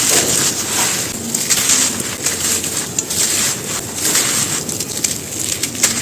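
Brittle material being crumbled and crushed by hand: a continuous crunching crackle, with a few louder snaps breaking through.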